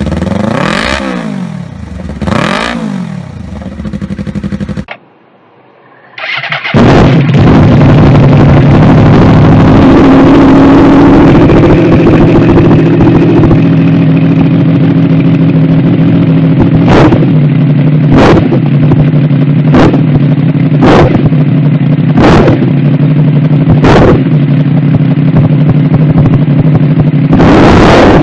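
Motorcycle engine revving in two quick blips, each rising and falling in pitch. After a cut and a short gap, a motorcycle engine runs very loud and steady, with six sharp cracks about a second or so apart in its middle stretch.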